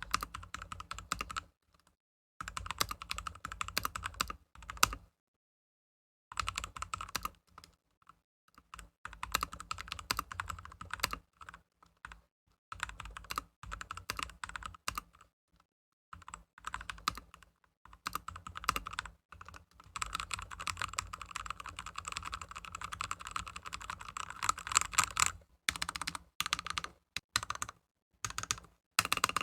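Yooso Z-88 mechanical keyboard with lubed brown switches being typed on: rapid key strokes in bursts, broken by short pauses, the longest about five seconds in.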